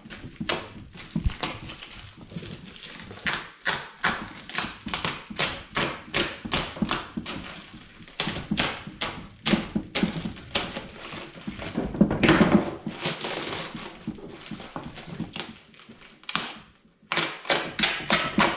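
Irregular light taps and knocks, a few a second, with a louder thud about twelve seconds in.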